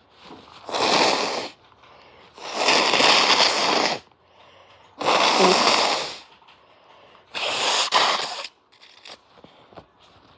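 Four forceful, snotty nose blows by a person with a cold, each lasting a second or so with short pauses between.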